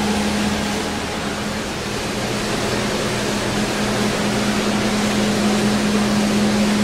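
SmartShop I CNC router running: a steady hum with a constant tone over an even rushing machine noise.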